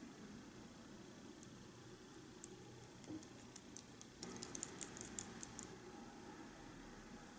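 Wooden chopsticks clicking against a small porcelain cup while beating a raw egg: a few scattered light clicks, then a quick flurry of clicks from about four to six seconds in.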